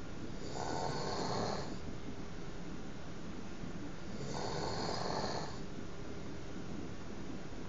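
A man snoring in his sleep: two snores, each a little over a second long, about four seconds apart.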